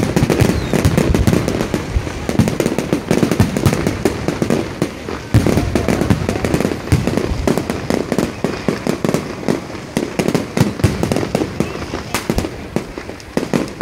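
Big fireworks display: many shells bursting at once, with rapid overlapping bangs and crackles.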